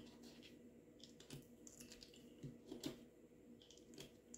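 A few faint clicks of .22 LR rounds being pressed into a Taurus TX22 magazine through a 3D-printed plastic loader, over near silence.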